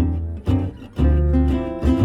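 Background music: strummed acoustic guitar with a bass line, notes struck about twice a second.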